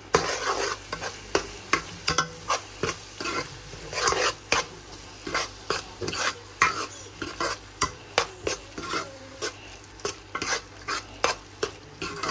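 A spoon stirring and scraping a pan of frying onions and ground spices, in quick repeated strokes over a light sizzle. This is the masala being cooked down (bhuna) for a chicken curry.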